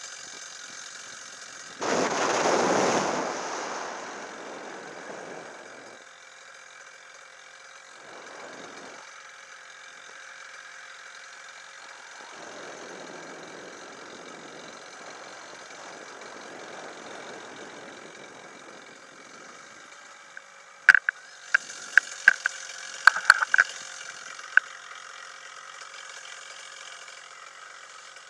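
Air rushing over an action camera's microphone in paraglider flight, swelling and easing in gusts over a faint steady whine. Near the end a quick cluster of sharp clicks and knocks comes from the harness and gear around touchdown.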